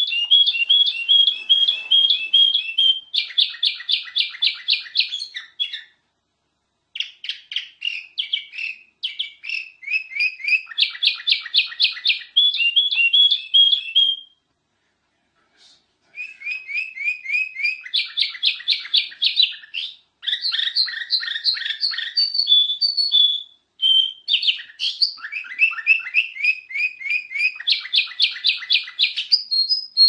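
Kutilang emas, a bulbul, singing: fast runs of repeated high chirping notes in phrases of several seconds, broken by short pauses of about a second.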